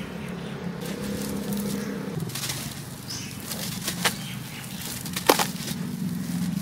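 A soft sand-cement block crumbling in gloved hands over a bowl of water, with gritty crunching as powder and chunks pour down. Two sharp cracks come about four and five seconds in, the second the loudest, over a steady low hum.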